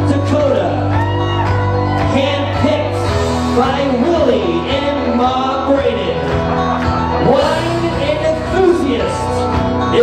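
A song with a sung vocal playing over the DJ's sound system, a singer's melody over a steady bass line.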